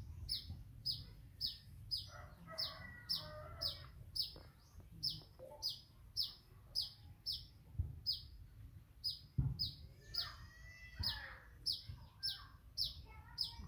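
A bird repeating a short high chirp steadily, about twice a second, with fainter calls lower down and two dull knocks in the second half.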